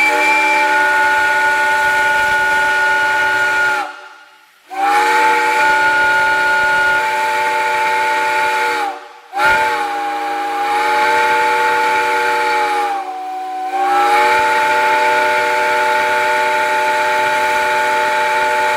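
Six-chime pilot whistle, homemade from old locomotive boiler tube, sounding a chord of several tones in three long blasts with short breaks. The first two last about four seconds each, and the third about nine seconds, with a brief sag in pitch and loudness near its middle.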